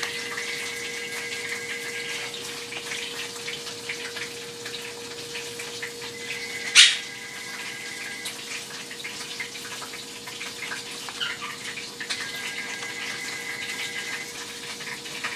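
Steady sizzle of oil frying in a pan, over a steady hum. A faint high tone comes and goes three times, and there is one sharp click about seven seconds in.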